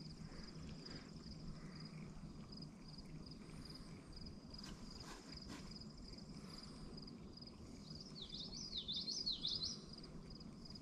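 Faint outdoor ambience: a high, thin call pulses steadily about twice a second over a low background hum, and about eight seconds in a songbird sings a quick run of chirps, the loudest sound here.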